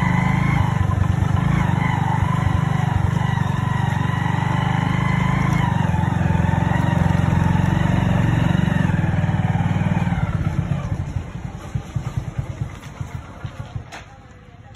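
Motorcycle engine running steadily, then cut off about ten seconds in and dying away in uneven, slowing chugs. A sharp click near the end.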